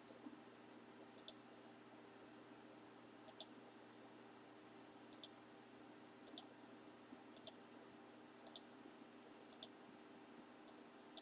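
Computer mouse button clicked about eight times, roughly once a second, each click a quick double tick, faint over a low steady hum. The clicks re-run an online list randomizer.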